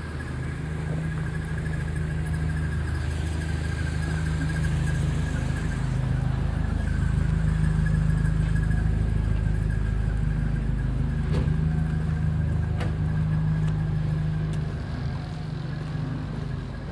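A motor vehicle's engine runs with a steady low hum over street ambience. It grows louder about halfway through and then eases off, with a thin steady whine above it and a few faint clicks.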